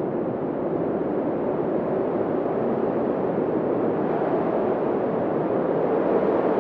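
Creepy wind sound effect: a steady, low, hollow rushing of wind that slowly swells louder and brighter.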